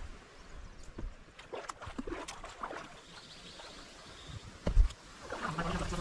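Canoe being paddled: paddle strokes in the water with scattered knocks and splashes, and one louder low thump shortly before the end.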